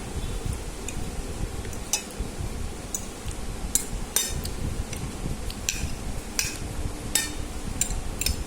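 Scattered sharp clicks and clinks of a utensil against a plate or bowl while eating noodles, over a steady low rumble.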